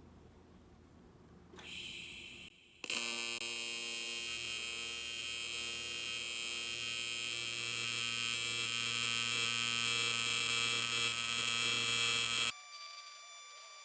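AC TIG welding arc on dirty aluminum. A short hiss of the arc starting comes about a second and a half in. From about three seconds in a loud, steady electric buzz runs for about ten seconds, then cuts off suddenly as the arc is broken.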